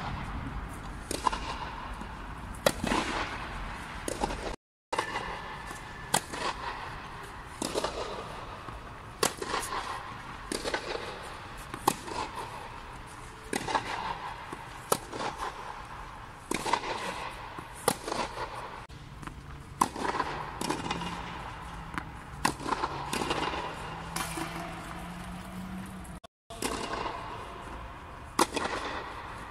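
Tennis balls struck by rackets in a groundstroke rally, each hit a sharp pop about every one and a half seconds, echoing inside a fabric air dome.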